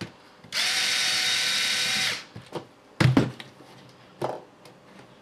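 A small power screwdriver runs steadily for about a second and a half, then two knocks follow, the first the louder.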